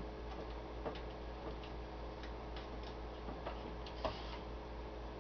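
Scattered light clicks and taps from hands working the front-panel knobs and connectors of a small CB radio, over a faint steady electrical hum.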